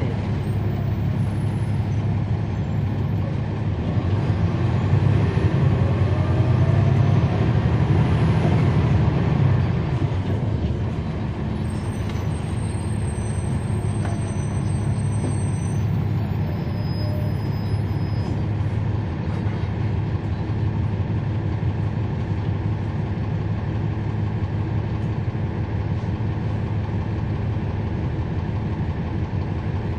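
Cummins ISL9 diesel engine of a NABI 416.15 city bus heard from the rear seats. About four seconds in it runs louder with a rising whine for several seconds, then settles back to a steady, lower running drone.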